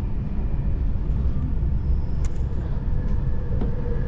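Steady low rumble of a moving passenger train, with a few faint clicks.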